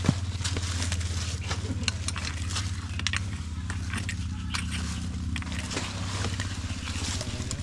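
An engine running steadily with a low, fast-pulsing hum, under scattered clicks, crackles and scrapes.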